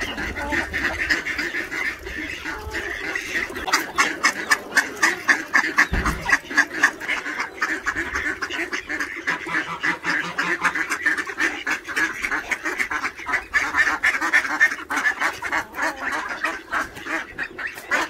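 A flock of domestic ducks quacking, many rapid calls overlapping, getting busier about four seconds in.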